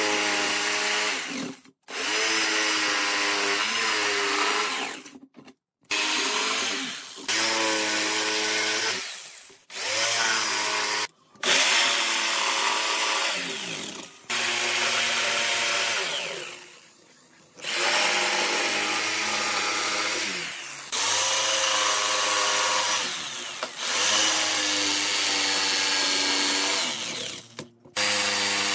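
Corded electric jigsaw (Sumikura SU1801) cutting curved shapes in a wooden board: a steady motor whine whose pitch wavers as the blade works through the curves. It comes in several runs, broken by abrupt short stops.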